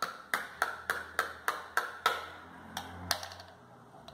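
Plastic spoon tapping the bottom of an upturned white glue bottle, knocking the last of the glue into the bowl: quick sharp taps, about three to four a second, stopping about two seconds in, with two more taps shortly after.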